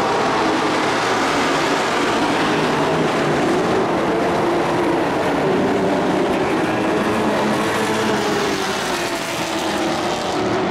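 Several race trucks' engines running at speed around a dirt oval, a loud steady drone of many engines together.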